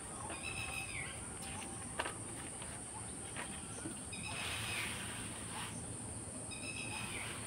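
Faint outdoor background with a steady high insect drone, like crickets, and a bird chirping three times: near the start, in the middle and near the end. Paper rustles as the sheet is slid around the middle, and there is a light tap about two seconds in.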